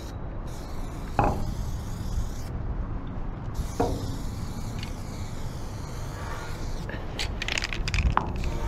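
Aerosol spray-paint can hissing in short bursts as paint goes onto the steel side of a freight car, over a steady low rumble.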